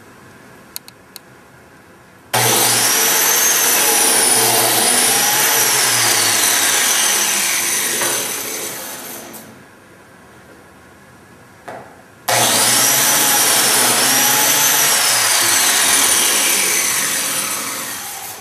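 Biscuit (plate) joiner switched on and cutting slots in wood, twice. Each run starts abruptly, holds a loud motor whine that bends in pitch for about six seconds, then winds down as the motor spins to a stop.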